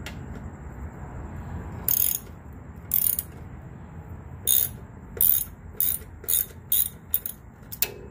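Hand socket ratchet clicking as it is worked back and forth on a bolt at the motorcycle's rear fender: about nine short bursts of clicks, the first two a second apart, then coming quicker from about halfway.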